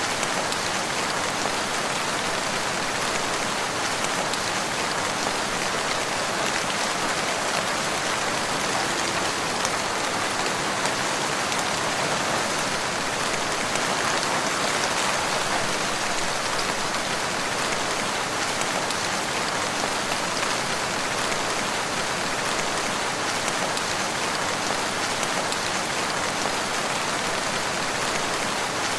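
Steady rain pattering on a surface, a constant hiss of dense drops with fine scattered drop ticks.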